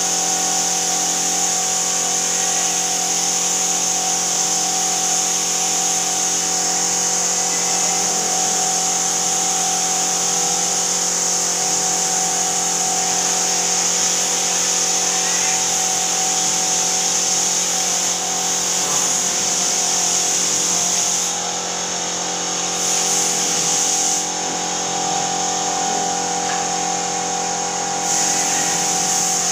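Compressed-air spray gun hissing steadily over the steady hum of the air compressor's motor. The hiss cuts out twice near the end as the trigger is let go, while the compressor keeps running.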